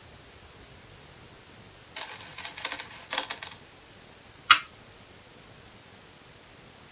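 Size 36 glass Go stones clicking together for about a second and a half as one is drawn from the bowl, then a single sharp click as a stone is placed on a Shinkaya wood floor Go board.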